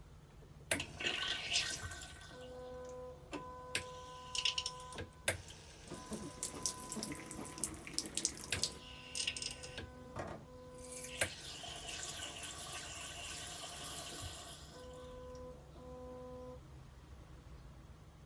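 Electronic bidet toilet seat (washlet) spraying water in several spurts, then a longer steady spray, with sharp clicks and a steady hum from the unit switching on and off.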